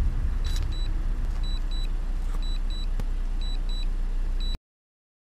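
A low, steady rumble with faint pairs of short, high beeps repeating about once a second, typical of a drone remote controller's return-to-home alert. The sound cuts off abruptly near the end.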